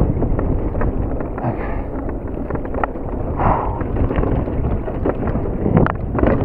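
Mountain bike rolling fast down a dirt singletrack: the tyres rumble over the ground while the chain and frame rattle with frequent sharp clicks and knocks. Wind buffets the action camera's microphone throughout.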